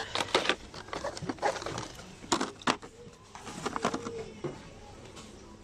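Scattered clicks, knocks and rustles, most of them in the first three seconds, with a faint voice briefly heard about four seconds in.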